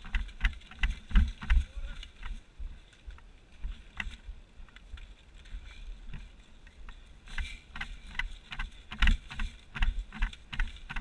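Footsteps through dry grass and brush: an irregular run of crackles and low thuds, busiest in the first two seconds and again from about seven seconds on.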